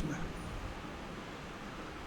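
Steady background hiss of room tone and microphone noise in a pause between words.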